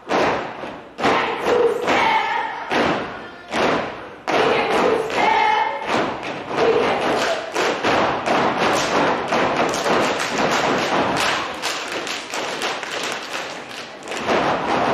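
Step team stomping and clapping in unison, the stomps and claps coming in quick, rhythmic strikes. Short shouted voices come in over the beats in the first few seconds; from about six seconds in, the stomping and clapping turns into a fast, dense run.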